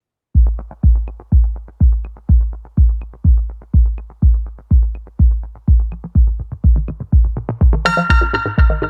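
Electronic dance music: a deep kick drum on every beat, about two beats a second, with synth chords coming in near the end.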